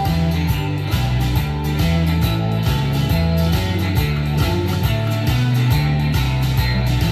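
Slot machine's free-spins bonus music: steady guitar-driven rock with a repeating bass line and an even beat.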